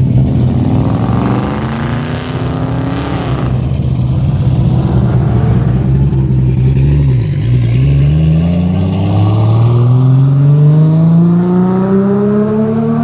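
A car engine running at steady revs, dipping briefly about seven seconds in, then accelerating with its pitch climbing steadily through the rest.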